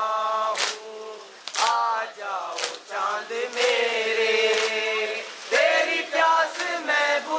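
A group of voices chanting a noha, a Muharram lament, in chorus, with a sharp beat about once a second keeping time.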